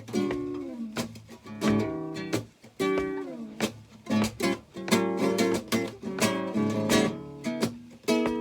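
Acoustic guitar playing an instrumental break: picked and strummed notes, with a few notes sliding down in pitch.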